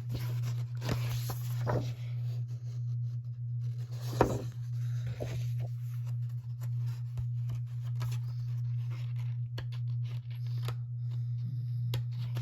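Paper pieces and envelopes being handled and shuffled: intermittent rustling, sliding and light taps, with one sharper tap about four seconds in, over a steady low hum.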